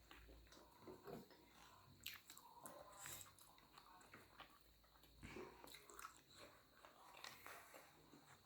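Faint chewing and small scattered clicks of people eating buff sukuti chowmein, noodles with dried buffalo meat, in near silence.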